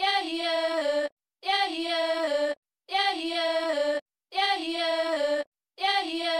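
A high-pitched vocal phrase, sung or synthesized and about a second long, repeated identically about every one and a half seconds as a loop, with short silent gaps between repeats.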